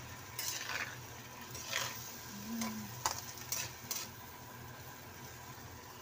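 Slotted spatula stirring and scraping diced potatoes and minced beef around a non-stick wok: several strokes in the first four seconds. Under them, a steady sizzle of the frying food in its little sauce.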